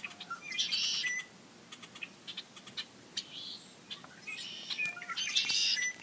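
Small birds chirping and calling: many short high chirps, with a buzzy trilling call about a second in and another near the end.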